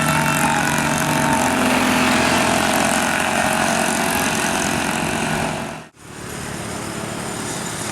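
Engine and road noise of a large vehicle, most likely a bus, running close by. The sound drops out sharply about six seconds in, then a steadier, quieter stretch of vehicle noise follows.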